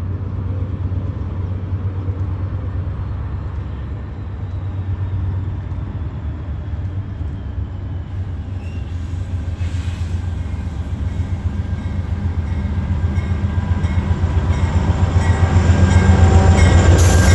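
Diesel locomotive engines of a Norfolk Southern freight train running with a steady low drone, growing louder over the last several seconds as the train approaches.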